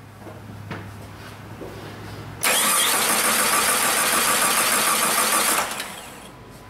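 2001 Jeep Grand Cherokee 4.0-litre straight-six cranking on the starter for about three seconds without firing, then stopping. This is a crank/no-start caused by a failed crankshaft position sensor (code P0320). A faint steady hum comes before the cranking.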